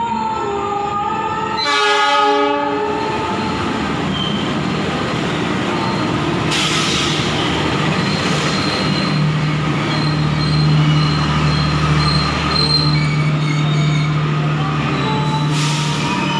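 Diesel locomotive's horn sounding one short blast about two seconds in, followed by the steady noise of the train running on the rails, with a low engine drone from about midway and two brief bursts of hiss.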